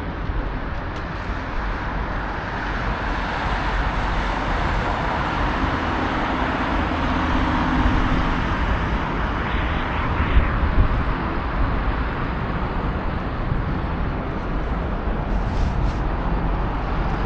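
City street traffic, with a vehicle passing: its tyre and engine noise swells over several seconds and then eases off.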